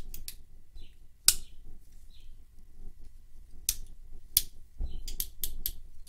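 Sharp metallic clicks and snaps of a Victorinox Swiss Tool Spirit X Plus stainless steel multi-tool as its handles and pliers are folded open and locked into place, a nice thwack. The loudest snap comes a little over a second in, with two more in the middle and a quick run of clicks near the end.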